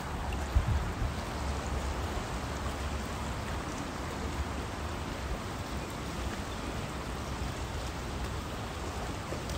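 Steady rushing of a river flowing fast over shallow riffles below a footbridge, with a low rumble underneath and a single thump about half a second in.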